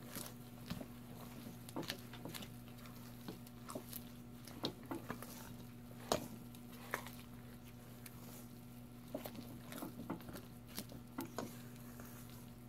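A spatula stirring a thick, gooey batter in a stainless steel mixing bowl: faint, irregular taps, scrapes and squishes, over a steady low hum.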